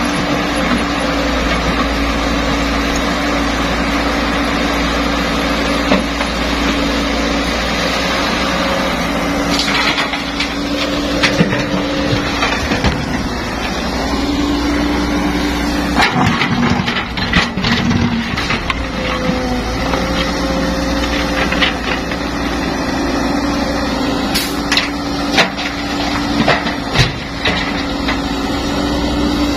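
Caterpillar E120B hydraulic excavator's diesel engine running steadily, its note shifting and dipping at times as the hydraulics take load. From about ten seconds in, sharp knocks and clattering of rock come through as the bucket digs and dumps into a dump truck.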